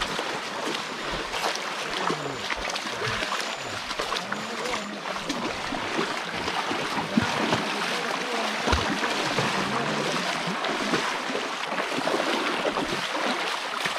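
Steady rush of a shallow river, with scattered splashes from people wading through it.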